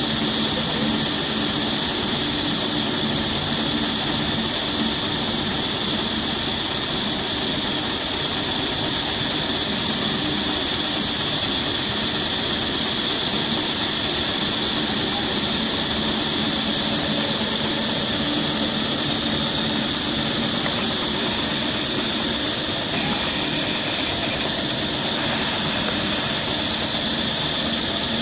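Steady high-pitched drone of an insect chorus over a hiss, holding an even level throughout.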